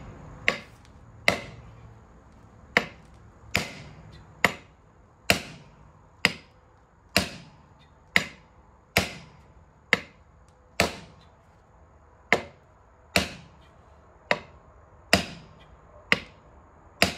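Repeated hammer blows on metal during semi truck hub work, about one strike a second, each with a short metallic ring. The hammer is a makeshift one, not the right tool for the job.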